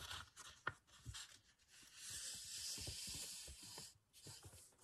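Faint rustle of a sheet of printed paper being handled and laid down flat, with a soft sliding hiss in the middle and a few light taps.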